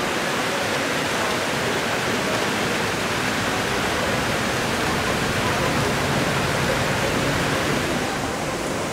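A steady, even rushing noise, with faint voices underneath.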